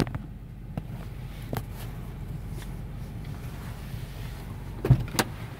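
Steady low hum inside a parked vehicle's cabin with a few light handling clicks, then two sharp clicks about five seconds in as the car door is unlatched and opened.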